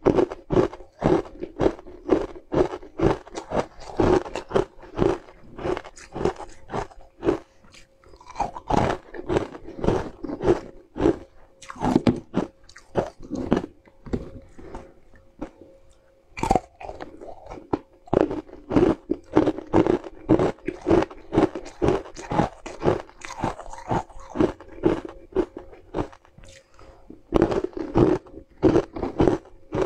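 Crisp crunching and chewing of chunks of ice coated in green powder, bitten close to the microphone. Rapid crunches come several a second, with short lulls between bites.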